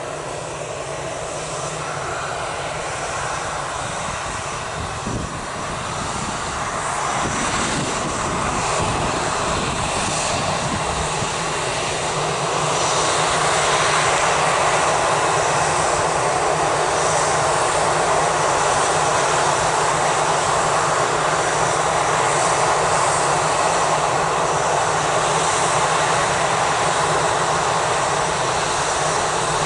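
Airbus A320-216's CFM56 turbofan engines, heard close by, spooling up for takeoff: the jet noise grows louder in two steps over the first dozen seconds, then holds steady and loud.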